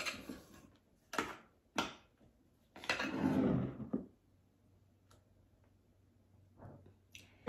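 A metal spatula clicking a few times against a glass measuring bowl, then about a second of scraping as thick frosting is stirred in the bowl.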